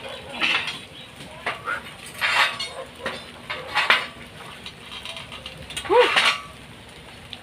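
Steel reinforcing bars clinking and clanking against each other as they are handled and bent into shape: about five separate metallic knocks a second or more apart.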